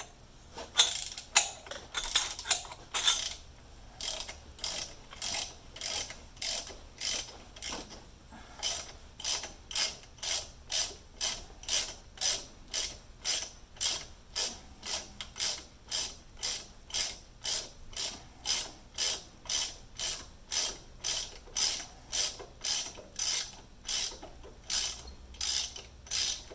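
Ratchet wrench clicking in short repeated strokes as it turns an easy out, backing a broken bolt out of the steering knuckle once heat has freed it. The strokes are uneven at first, then settle into a steady rhythm of about two a second.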